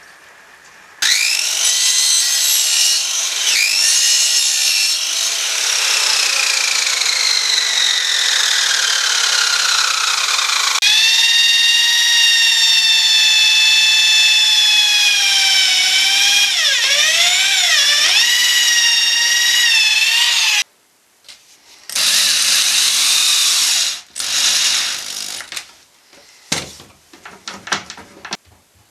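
Electric power tool motor running at high speed with a loud whine. The pitch sinks slowly over several seconds, then holds steady and dips briefly a few times as the tool is loaded. It stops abruptly, runs again for about two seconds, then gives way to a few scattered knocks.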